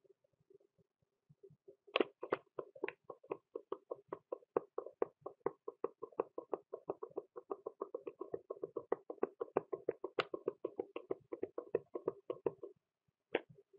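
Computer mouse clicking rapidly and evenly, about five clicks a second, over a faint steady hum. The clicks start about two seconds in, stop shortly before the end, and one more click follows.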